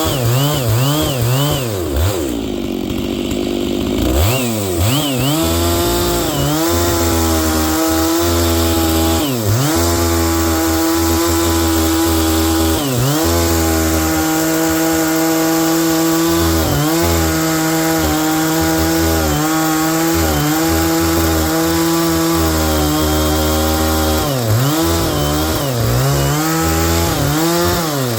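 Stihl MS 660 two-stroke chainsaw with a 36-inch bar and ripping chain, run at high revs while ripping a log lengthwise for firewood. Its pitch dips briefly again and again and recovers as the chain bites. About two seconds in it sags to a low pitch, then revs back up about four seconds in.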